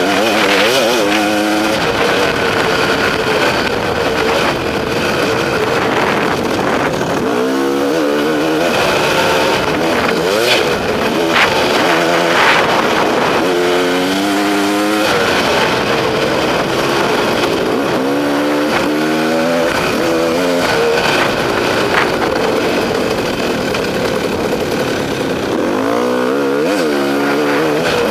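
KTM XC-W two-stroke enduro motorcycle engine running under load, heard from the rider's helmet camera, its pitch rising and falling several times as the throttle is worked and gears change.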